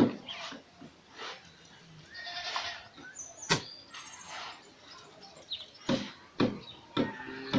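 A goat bleating, one wavering call about two seconds in, among short sharp scraping strokes of shovels in sand and gravel. The loudest strokes come about three and a half seconds in and near the end.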